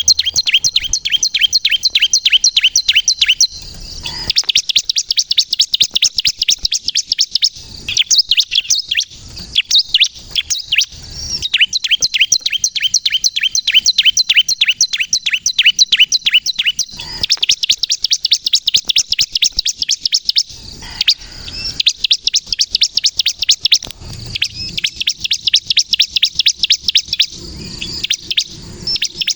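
Bar-winged prinia (ciblek kristal) singing vigorously: long runs of rapid, sharp, high chirping notes, several a second, broken by brief pauses.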